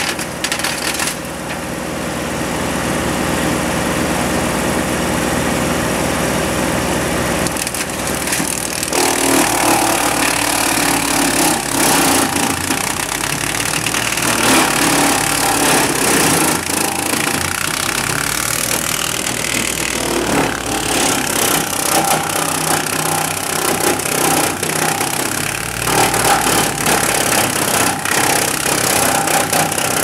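Engine-driven ANON trailer wood chipper running steadily, then chewing through a log fed into its hopper: continuous crushing and splintering of wood under the engine, heavier and rougher from about eight seconds in.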